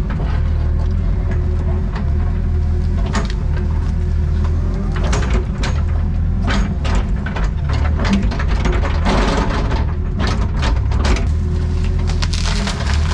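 Excavator's diesel engine running steadily under load, with a steady whine above the hum. Irregular sharp cracks and knocks come throughout, thickest about nine seconds in and near the end.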